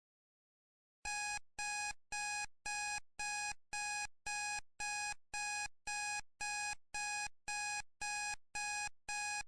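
Electronic timer alarm beeping in a fast, even series of identical high beeps, about two a second, starting about a second in: the Pomodoro timer signalling that the five-minute break is over.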